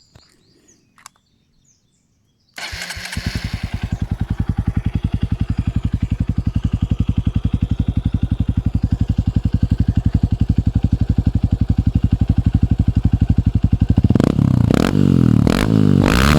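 Honda CRF150 single-cylinder four-stroke engine through an Exos X6 aftermarket exhaust, starting about two and a half seconds in after a few faint clicks, then idling with a steady, even pulse. Near the end it is revved in several throttle blips, the pitch rising and falling.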